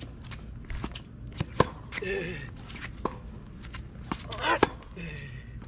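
Tennis rally on a hard court: a racket strikes the ball with a sharp pop twice, about three seconds apart, with softer ball bounces and hits between. Short squeaks of shoes on the court surface come between the shots.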